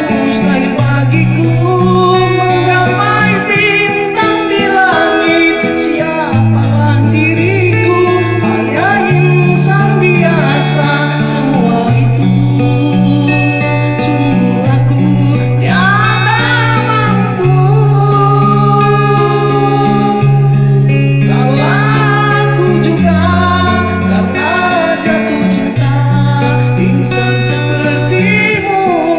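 A song: a solo voice singing a gliding melody over guitar accompaniment and a bass line that changes note every second or so.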